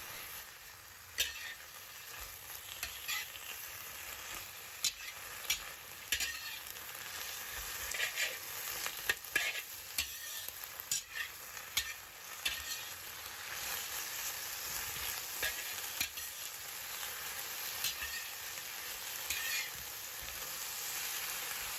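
Bean sprouts and Shanghai bok choy sizzling as they are stir-fried in hot oil with garlic and dried chillies, with the steady hiss of frying broken by scattered clicks of the utensil against the pan.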